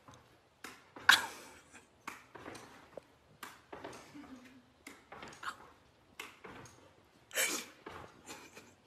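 A dog playing indoors, giving a string of short, sharp, noisy sounds with scuffling, at irregular spacing; the loudest comes about a second in and another near the end.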